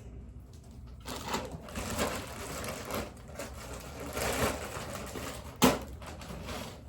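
Irregular rustling and scrubbing of a fabric blanket being handled and cleaned, with one sharp knock about two-thirds of the way through.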